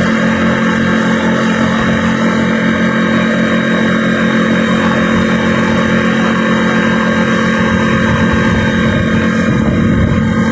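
Engine running steadily at an even speed, with a regular low pulsing beat.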